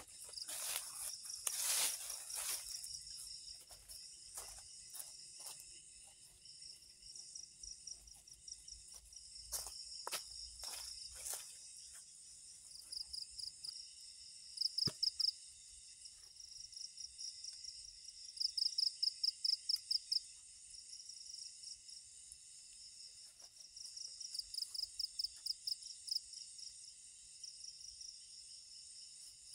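A steady high-pitched chorus of forest insects at nightfall, with bursts of fast pulsed trilling every few seconds. During the first twelve seconds or so there are scattered rustles and light knocks, footsteps and movement on dry leaf litter.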